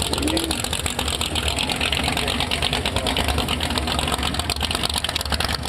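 Drag boat engine idling with a rapid, steady firing pulse and a deep low hum.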